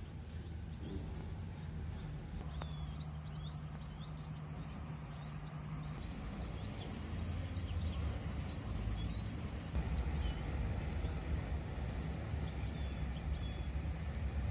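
Outdoor ambience: small birds chirping and twittering over a steady low hum.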